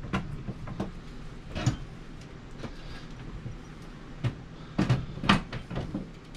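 Scattered clicks and knocks of a TV being lifted onto a full-motion wall mount and seated on its bracket, with a cluster of sharper clacks about five seconds in.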